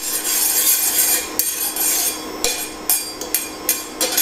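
Metal spatula scraping around a stainless steel frying pan, spreading coconut oil, in long scratchy strokes that give way to a run of short scrapes and taps in the second half.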